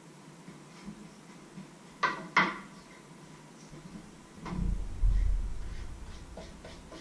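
Kitchen handling noises as a wooden cutting board and cookware are picked up and moved: two sharp clacks about two seconds in, then a heavier low thud with a short rumble a little past halfway, and a few faint clicks near the end.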